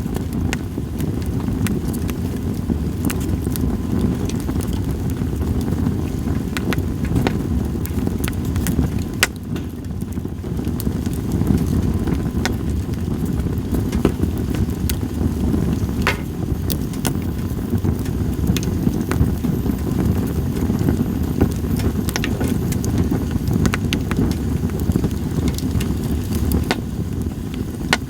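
Split sawtooth oak (kunugi) logs burning in a campfire, crackling with sharp pops scattered irregularly throughout, over a steady low rumble.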